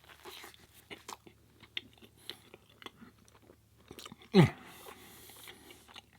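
A person chewing a mouthful of Beyond Meat burger with spaghetti sauce, in irregular wet smacks and clicks. About four seconds in comes a short, low burp that falls in pitch.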